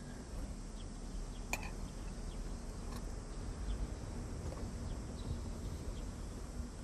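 Outdoor ambience: a steady low hum with faint, scattered short bird chirps.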